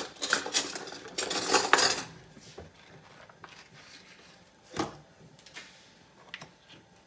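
Metal kitchen knife clinking and scraping while butter is cut and handled, for about two seconds; then quieter, with a single sharp knock about five seconds in.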